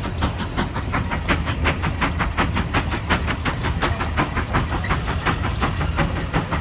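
Exhaust of the 150 Case steam traction engine chuffing in a steady rhythm of about four beats a second over a low rumble, the engine working under load pulling a 44-bottom gang plow.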